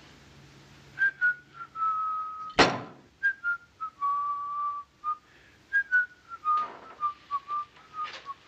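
A man whistling a slow tune in phrases of falling notes, starting about a second in. A sharp knock about two and a half seconds in cuts across it.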